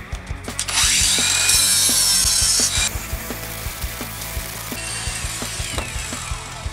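Bubble wrap crinkling and rustling as metal exhaust tips are unwrapped and handled. It is loudest for about two seconds near the start, then softer.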